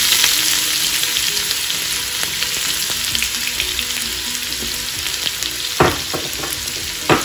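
Freshly added crushed garlic sizzling and frying in hot oil for a dal tempering (tadka), a steady hiss that eases slightly. Two brief knocks come near the end.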